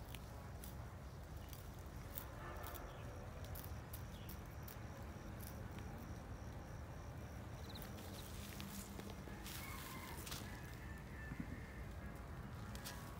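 Rural outdoor ambience with a steady low rumble and scattered small clicks and rustles. A faint high, evenly pulsing note runs through the first half. A short bird call, typical of a chicken, comes about ten seconds in.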